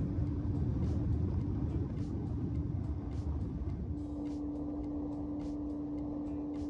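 A boat's engine running steadily underway, a constant hum over heavy low rumble from the hull on the water and wind. About four seconds in, the rumble drops and the hum holds steadier.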